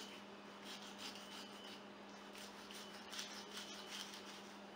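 A fillet knife slicing through a raw catfish on a paper towel, with soft, repeated scraping strokes of the blade through the flesh and against the paper.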